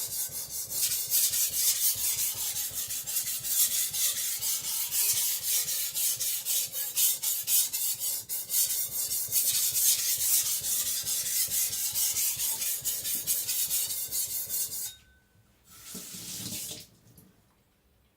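Stainless Chinese cleaver blade stroked rapidly back and forth on a wet whetstone, a steady run of scraping strokes, raising the edge at a slightly higher angle. The strokes stop about 15 seconds in, followed a second later by a brief rush of hiss.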